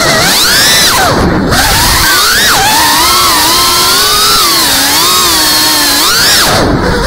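Geprc Cinelog 35 FPV drone's motors and propellers whining. The pitch swoops down sharply about a second in and again near the end as the throttle is chopped and punched back up, with a steadier wavering whine in between.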